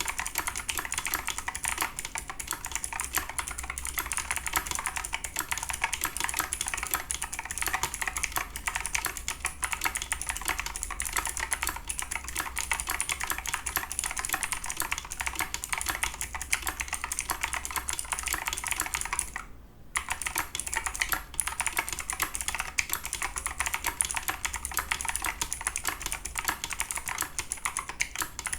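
Fast, continuous typing on a Razer Tournament X Chroma mechanical keyboard with clicky Razer Green switches and EnjoyPBT keycaps, standing on its raised feet. Dense key clicks with one brief pause a little past two-thirds of the way through.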